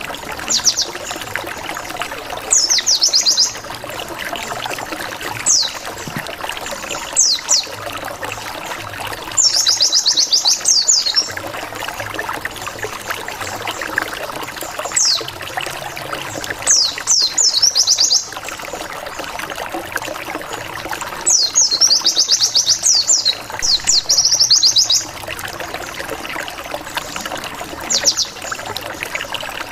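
Pleci (white-eye) song used as a lure call: repeated bursts of fast, high, falling 'wit-wit-wit' notes, some single and some in rapid runs of up to two seconds, over a steady rushing background.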